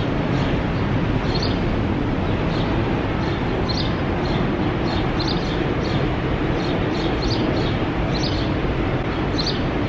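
Steady rush of wind, with small birds chirping about once a second over it.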